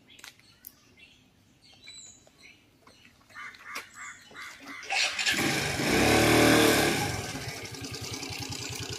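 Motor scooter engine starting up about five seconds in, loudest about a second later, then running steadily at a lower level. Faint bird chirps before it.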